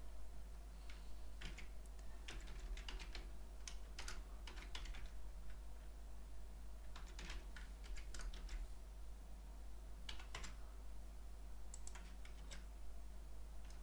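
Typing on a computer keyboard: irregular keystrokes in short runs with brief pauses, over a steady low hum.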